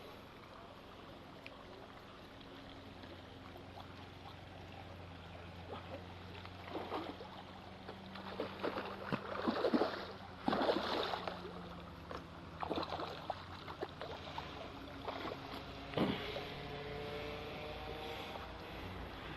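Water splashing and sloshing in irregular bursts, with a few sharp knocks, over a low steady hum.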